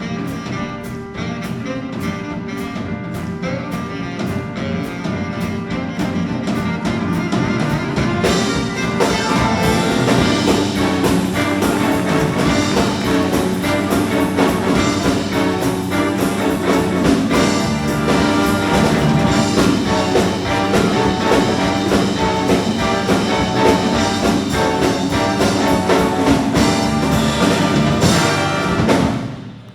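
Junior jazz big band playing, with a steady drum beat carrying the first several seconds. About eight seconds in, the full band with trumpets and trombones comes in louder, and the sound breaks off briefly near the end.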